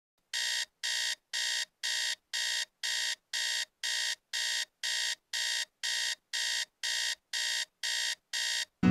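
Phone alarm beeping: short, identical high-pitched beeps at an even pace of about two a second.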